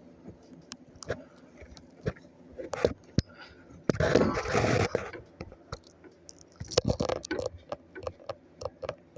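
Small clicks, taps and scrapes of a circuit board being handled and wiped clean of thermal paste, with a louder rubbing spell about four seconds in lasting about a second, and a shorter one near the end.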